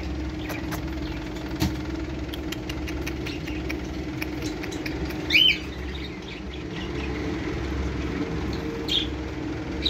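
Steady mechanical hum over a low rumble, like an idling engine or machine, with a short high chirp about halfway through.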